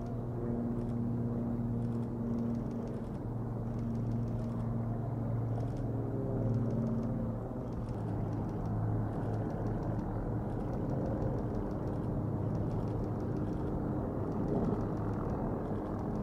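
B-2 Spirit stealth bomber's four turbofan engines heard as a steady, low rumbling drone with a hum in it. The pitch shifts slightly about halfway through.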